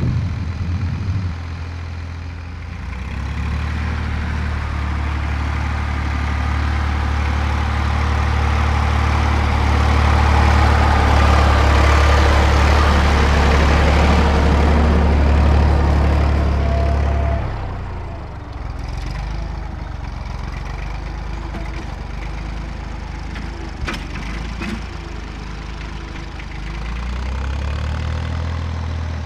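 Fordson Dexta's three-cylinder diesel running steadily as the tractor pulls a field roller. It grows louder as it passes close by, drops off sharply about two-thirds of the way through as it moves away, then swells again near the end. A couple of short clicks come in the quieter stretch.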